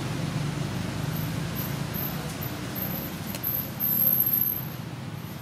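Steady low rumble of a motor vehicle engine, swelling briefly about four seconds in.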